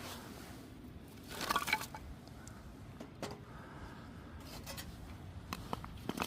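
Wood fire crackling with scattered sharp pops, and a brief scraping rustle about a second and a half in.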